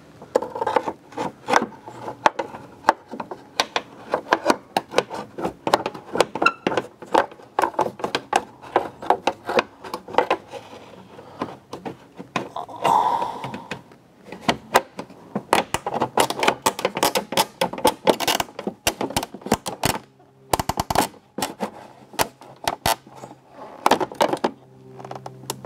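A plastic panel-popper tool and pick prying at a car tail light assembly: irregular clicks, taps and scrapes of tool on plastic as the dirt-clogged retaining clips resist, with a quick run of clicks about two-thirds of the way through.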